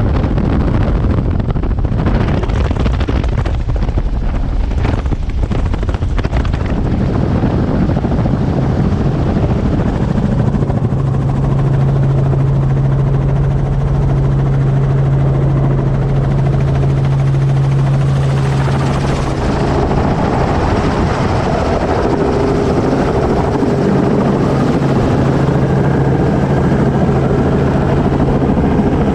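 Helicopter in flight, heard on board: a loud, steady rotor and engine noise. Gusts of wind hit the microphone in the first few seconds, and a steady low hum comes in about a third of the way through.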